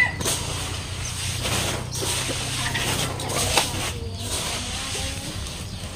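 Rustling and scraping of damp, sprouting seed paddy being scooped by hand and pushed into a woven plastic sack, with a few short rustles. Chickens cluck faintly.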